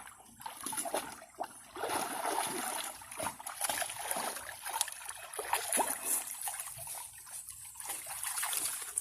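Water splashing and sloshing irregularly as a puppy paddles and swims, a busy run of small splashes that grows louder about two seconds in.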